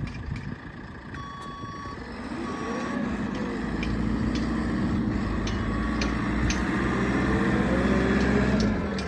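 JCB 3CX backhoe loader's diesel engine running and revving up and down as the machine works, growing louder through the middle and easing off near the end. Its reversing alarm beeps in short spells in the first few seconds and again about six seconds in.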